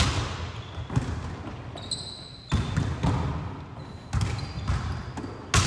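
Volleyballs being struck by players' forearms and hands and bouncing on a wooden gym floor in a dig-and-set drill: about seven sharp hits, roughly one a second, each echoing in the hall, with a few short high squeaks between them.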